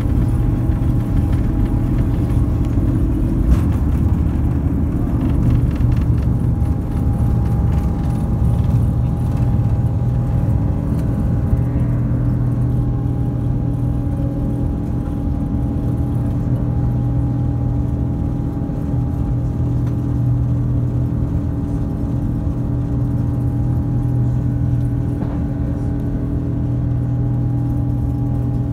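Airbus A330-900neo's Rolls-Royce Trent 7000 engines at takeoff thrust, heard inside the cabin as a loud, steady deep drone with steady humming tones. A deep runway rumble from the wheels stops a few seconds in as the aircraft lifts off, and the engine drone carries on through the climb.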